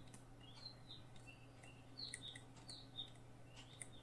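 Near-silent room tone with a steady low hum, small birds chirping faintly in the background several times a second, and faint clicks of a stylus tapping on a tablet while writing.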